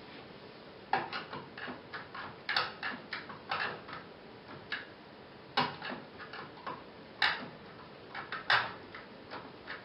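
A series of irregular clicks and taps, some in quick pairs or clusters, from a hand pressing and handling the front-panel buttons and switch of an old 14-inch Samsung CRT TV.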